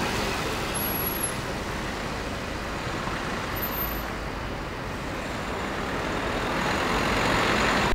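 Street traffic: cars driving past on the road, a steady rush of engine and tyre noise that dips in the middle and swells again toward the end as cars pass close by.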